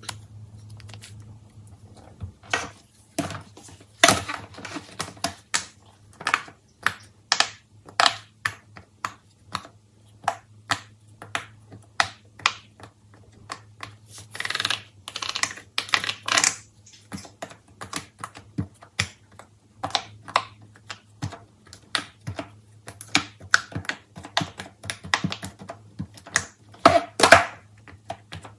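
Silicone pop-it fidget toy bubbles pushed through one after another by fingers: an irregular run of sharp pops, several a second, starting about two seconds in.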